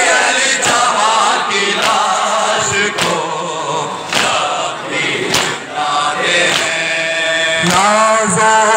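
Crowd of men chanting a Muharram noha in unison, with sharp slaps of hands striking chests (matam) about once a second. Near the end a single voice holds long sung notes over the crowd.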